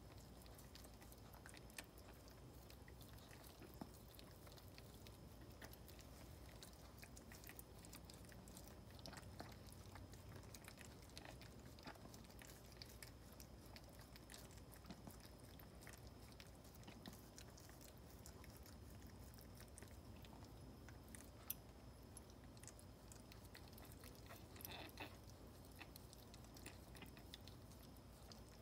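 Faint licking and small mouth clicks from a Maltese mother dog licking her newborn puppies clean after whelping.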